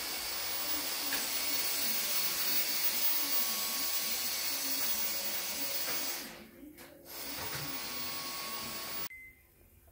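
A steady, loud hiss of rushing air or spray, in two long stretches with a short break about six seconds in, cutting off sharply about nine seconds in.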